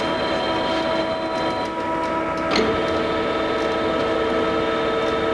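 Summit gap bed engine lathe running its power rapid traverse: a steady machine whine with several tones. About two and a half seconds in there is a click and the tone changes, as the feed is shifted or changes direction.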